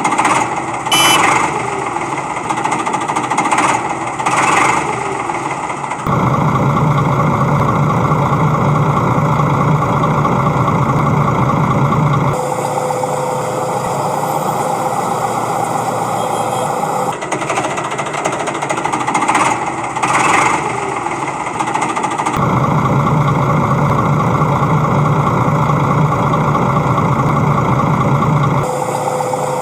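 Heavy backhoe-loader engine running steadily with a rattling, jackhammer-like clatter and a few sharp knocks. The sound switches abruptly every five or six seconds, as repeated spliced sound-effect clips do.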